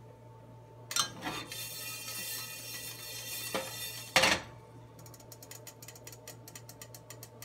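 Coriander seeds dry-roasting in an empty pan, with a few separate knocks (the loudest about four seconds in), then a fast run of light, even ticks over the last couple of seconds.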